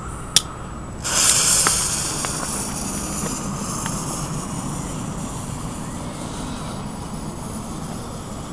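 Military smoke grenade (NVA Nebelwurfkörper) igniting: a sharp click, then about a second in a sudden strong hiss as the smoke composition catches and starts pouring out smoke, loudest at first and slowly tapering, with a few faint crackles.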